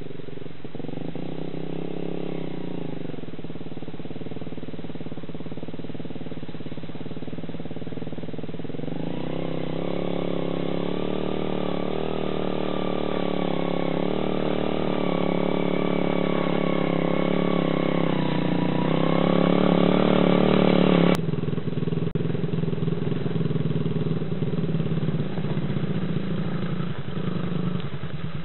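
Small dirt bike engine climbing a rocky trail, its pitch rising and falling with the throttle and getting louder as the bike comes closer. About two-thirds of the way through it cuts off abruptly to another mini dirt bike's engine running at low revs.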